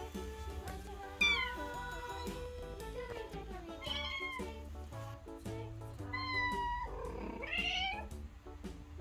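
Kitten meowing four times in high, bending calls over background music.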